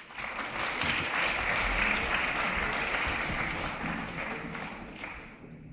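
Audience applauding, starting at once, at its fullest about two seconds in and dying away near the end.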